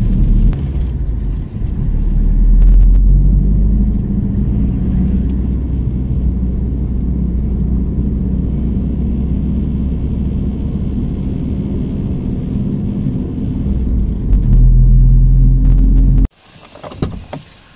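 A van's engine and tyre noise heard from inside the cab while driving: a steady low rumble that swells a little for a couple of seconds near the end, then cuts off abruptly.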